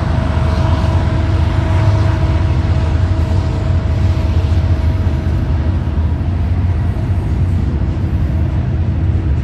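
Freight train passing close by, its diesel locomotives and cars rolling with a heavy, steady low rumble. A faint steady tone runs under it and fades out about six seconds in.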